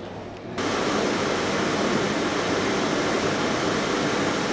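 A steady rush of air that comes on suddenly about half a second in and then holds: the air curtain above a glass doorway, blowing as the door is opened.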